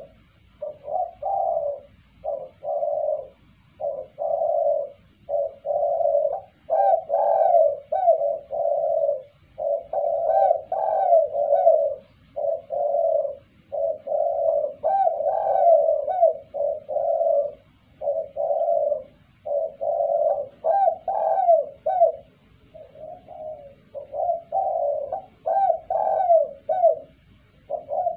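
Spotted dove cooing over and over, phrase after phrase of low coos with short pauses between them.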